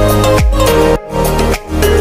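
Upbeat background music with a kick drum beating about twice a second. It drops out briefly twice around the middle.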